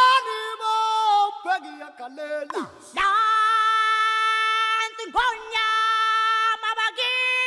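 Background music: a single voice sings long held notes with swooping slides between them, with no bass accompaniment.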